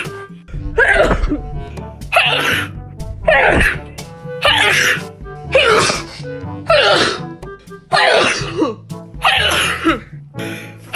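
A person sneezing about ten times in rapid succession, roughly one sneeze a second, each a sharp burst that falls in pitch, with background music underneath.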